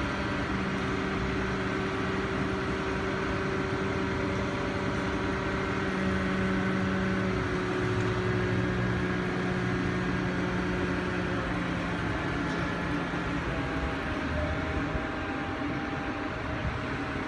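Large mobile crane's diesel engine running steadily while it holds and lifts a walkway section, a low hum with a few held higher tones whose pitch shifts a little about halfway through.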